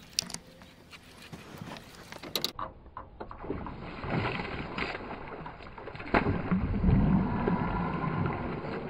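A hooked bass jumping and thrashing at the water's surface, splashing. From about six seconds in, knocks and a louder low rumble from the boat join in.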